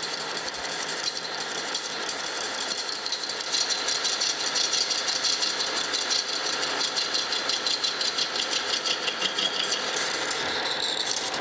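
Metal lathe running under a cut, its carbide insert facing a brazed cast iron casting: a steady hiss of cutting with a fast rhythmic pulse from about a third of the way in, easing near the end.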